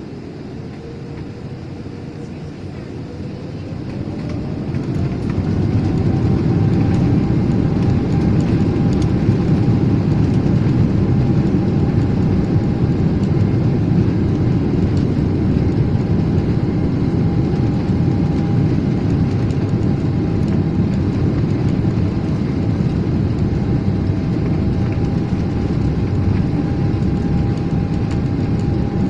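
Airliner jet engines spooling up for take-off, heard from inside the cabin: a whine rises in pitch and the rumble grows louder over a few seconds, then both hold steady as the plane rolls.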